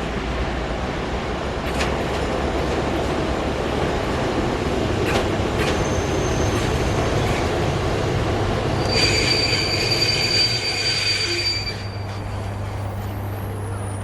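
Passenger train passing on the track: a steady rumble of wheels on rails, with a few sharp clicks over rail joints. About nine seconds in, a high metallic wheel squeal sounds for some three seconds, then the rumble eases to a quieter hum.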